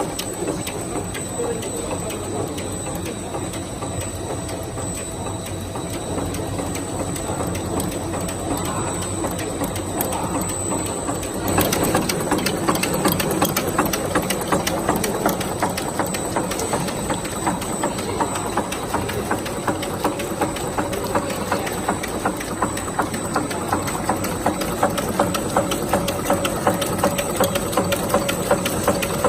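Bubble gum production line machinery running with a fast, even mechanical clatter, getting louder about 11 seconds in.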